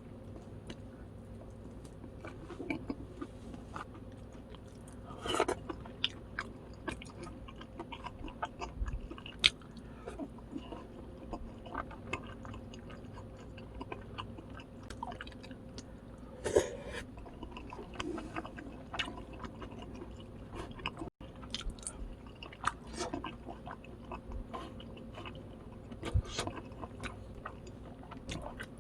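Close-up chewing and crunching of crispy fried boneless chicken, with many small crackles and a few louder crunchy bites spread through.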